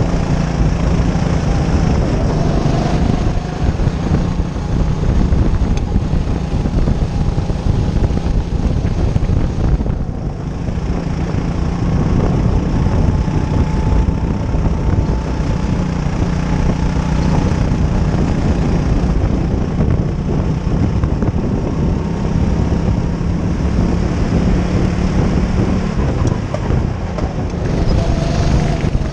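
Hire go-kart engine running steadily at speed, heard from the driver's seat, with other karts' engines mixed in. The note eases briefly about ten seconds in.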